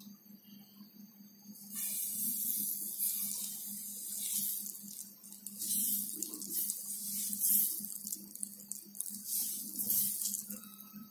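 Thin batter sizzling on a hot frying pan as it is poured in and spread in a spiral with a spoon; the hiss starts about two seconds in, swells and eases as the spoon works, and dies away near the end, over a low steady hum.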